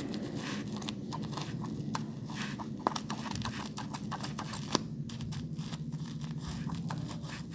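Plastic parcel packaging crinkling and rustling as it is handled and cut open, with irregular clicks and two sharper snaps about three and nearly five seconds in, over a low steady hum.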